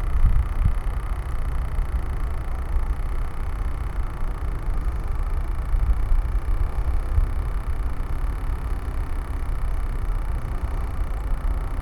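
Wind buffeting the microphone: a steady low rumble that rises and falls unevenly, with a faint hiss above it.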